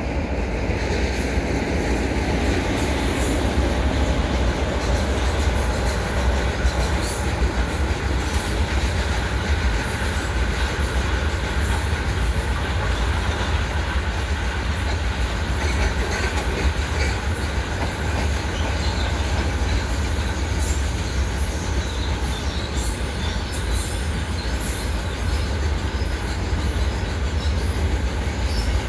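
Train rolling past: a steady heavy rumble of the wagons and wheels on the rails, with many short, sharp high clicks and squeals from the wheels.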